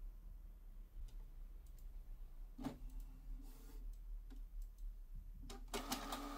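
Canon PIXMA TR4750i inkjet printer starting a test print: faint mechanical clicks, then its motor humming briefly about three seconds in and again steadily near the end as the paper feed gets going.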